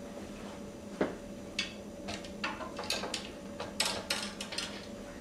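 Light handling noises as a fishing rod is carried off and put away: a single knock about a second in, then a scattered string of short clicks and rustles.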